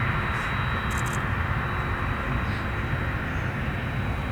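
Airliner engine noise: a steady loud rushing sound with a thin, steady high whine.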